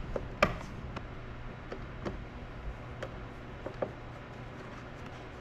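Scattered clicks and light knocks of hand work on a car door panel, the sharpest click about half a second in, over a steady low hum.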